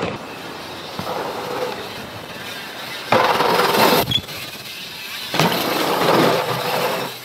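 Dirt jump bike tyres rolling fast over packed dirt with wind rushing past, a steady noise that surges louder for about a second around three seconds in, up to a jump take-off, and again for a couple of seconds near the end as the bike carves a berm.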